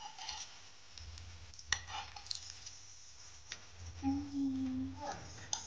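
Metal spoon clicking and scraping against a nonstick frying pan as it works under the edge of a frying pancake, with a sharp tap a little under two seconds in. A brief steady hum starts about four seconds in and lasts about a second.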